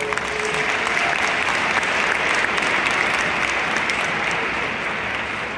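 A large stadium crowd applauding, a dense wash of clapping that swells in as the speech stops and eases off slightly near the end.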